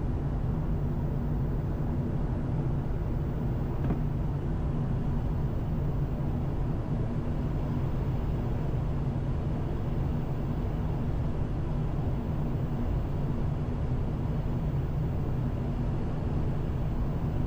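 Steady cockpit noise of a Gulfstream business jet on final approach with gear and flaps down: rushing airflow over a low, even hum from its turbofan engines.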